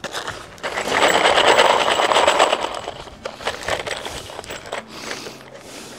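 Screws rattling and clinking as a handful is scooped up, loudest in the first half, then scattered lighter clicks as the screws are handled.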